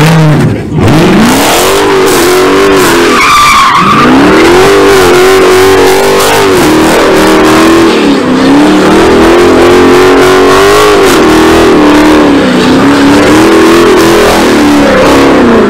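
Dodge Charger's Hemi V8 revving hard while its rear tyres spin and squeal in a smoky burnout and donuts. The revs climb in the first seconds, drop briefly a few seconds in, then hold high with repeated dips and surges.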